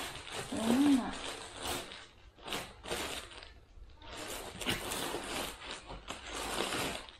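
Plastic garment bags and paper rustling and crinkling in irregular bursts as hands rummage through a cardboard box of clothes, with a brief vocal sound about a second in.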